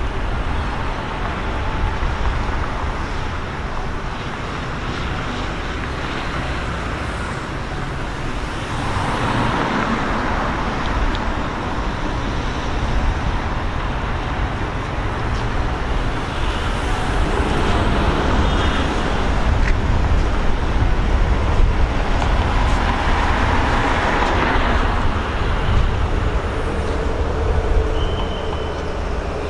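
Alsthom diesel-electric locomotive's engine running in a low, steady rumble as the train approaches at a crawl, getting gradually louder. A brief high tone sounds near the end.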